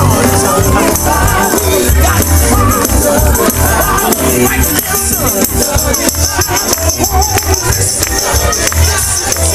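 Loud worship music with singing over a steady bass beat and shaken percussion. The singing is clearest in the first half, and the percussion strokes are thickest in the second half.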